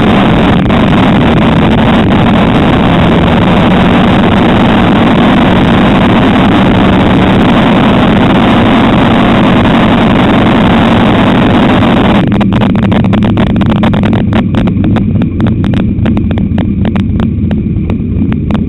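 Dirt-track modified race car's V8 engine heard close up from the car, running loud and steady. About twelve seconds in it drops to a lumpy, popping idle with rapid uneven exhaust pops.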